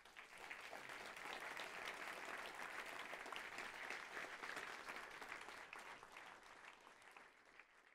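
Audience applauding, a dense patter of clapping that builds quickly, holds steady and then dies away over the last couple of seconds.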